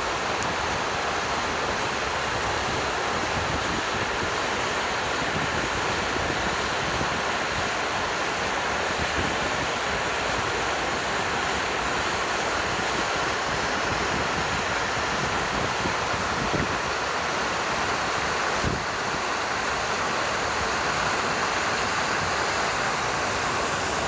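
Flowing water rushing steadily with an even hiss that does not rise or fall.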